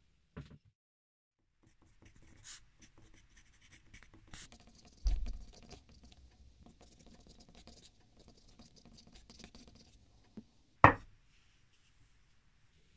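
Pencil writing on paper: a run of short, irregular scratching strokes, with a low thump about five seconds in. A single sharp knock comes near the end.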